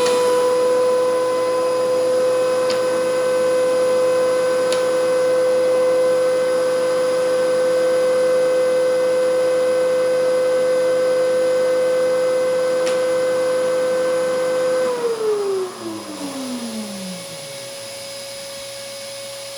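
DeWalt DW735X thickness planer running at a steady pitch, then switched off about fifteen seconds in, its pitch falling as it spins down over a couple of seconds. A quieter steady hum from another machine carries on after it stops.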